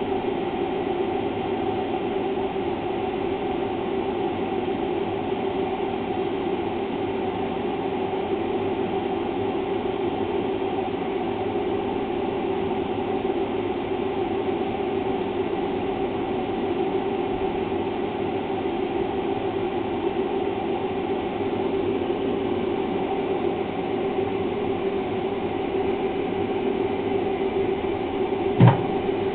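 Steady mechanical hum and rumble, unchanging throughout, with a single sharp click near the end.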